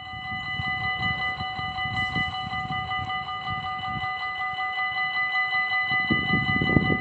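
Level-crossing warning bells ringing in a rapid, even pattern while the barriers lower, signalling an approaching train. A low rumble swells near the end.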